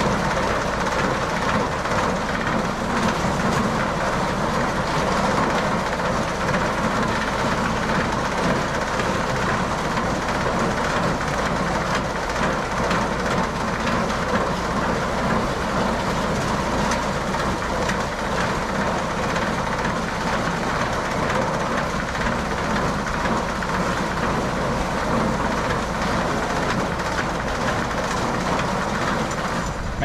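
Farm machinery running with a steady rattling clatter.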